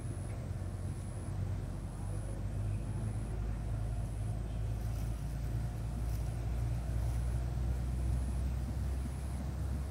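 A steady low rumble, with a faint high-pitched tone pulsing about once a second above it.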